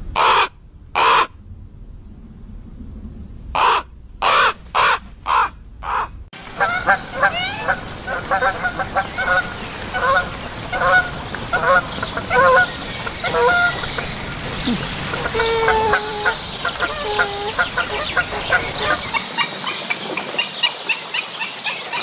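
A common raven croaking: two calls, a pause, then four more in quick succession. The sound then cuts to a crowd of pelicans calling over one another in a dense, continuous chorus.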